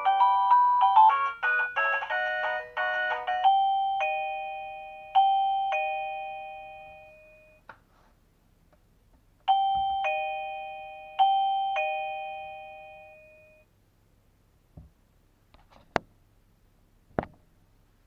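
Guudgo GD-MD01 wireless doorbell receiver playing its electronic chime melodies: a quick run of notes, then slow ringing chime notes that die away. After a pause a second four-note chime rings and fades, and a few sharp clicks follow near the end.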